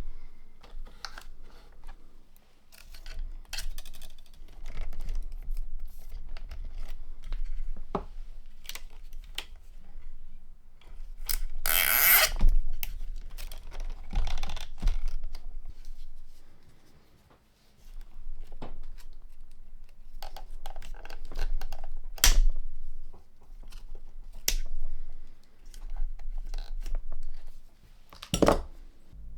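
Small tools and parts handled at an electronics workbench during capacitor replacement: scattered clicks, scrapes and rustles, with a longer scraping noise about twelve seconds in and sharp clicks near the end.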